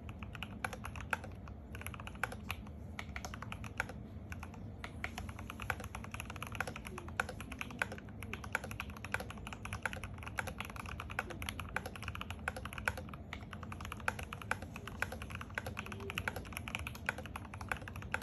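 Continuous fast typing on a GMMK Pro mechanical keyboard with a brass plate, lubed Everglide Aqua King v3 linear switches and Cherry-profile keycaps: a dense stream of keystroke clacks.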